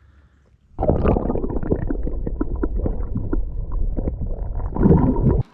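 Muffled gurgling and bubbling water with many small knocks through it. It starts suddenly about a second in and cuts off abruptly near the end.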